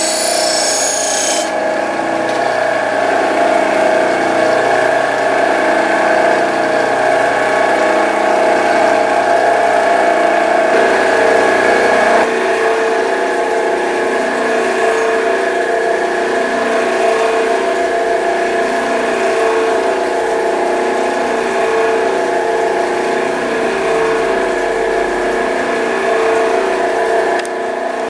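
Jet bench grinder running with a steady hum; a knife blade rubs on the wheel with a hiss for the first second or so, and the tone shifts slightly about twelve seconds in.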